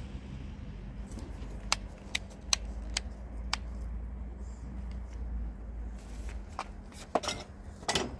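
Sharp plastic clicks and taps as a handheld power tool is turned over in a gloved hand, then a louder clatter near the end as it is set down in a wire cart among other tools, over a steady low rumble.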